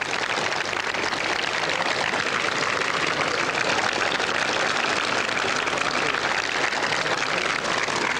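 A large crowd of spectators applauding steadily.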